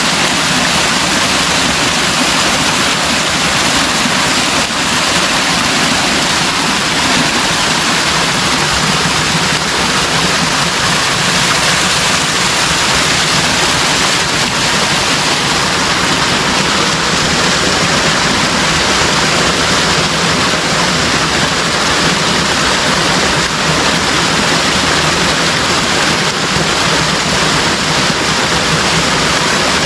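A stream of water flowing, a steady, even rush of running water.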